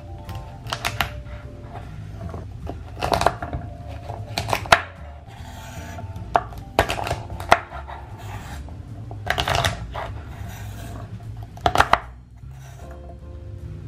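A knife cutting through a bunch of fresh asparagus spears onto a wooden cutting board: crisp snaps as the blade goes through the stalks and knocks on the board, coming singly or in quick pairs every second or two.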